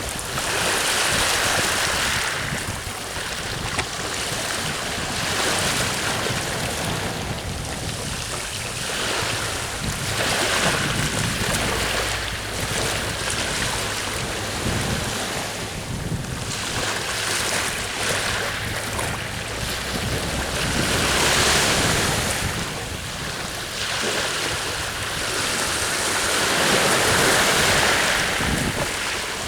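Sea waves breaking and washing on the shore in swells every few seconds, with wind blowing across the microphone.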